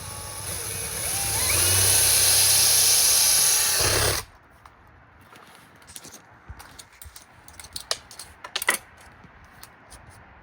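Power drill spinning up with a rising whine, then running steadily as it bores a small hole through cement board, and stopping abruptly about four seconds in. Faint clicks and knocks from handling follow.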